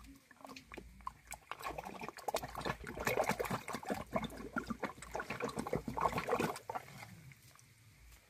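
Wet mud squelching and muddy water sloshing as a gloved hand digs and gropes down through a mud hole: a dense run of squishes and splashes that builds about a second and a half in and dies down near the end.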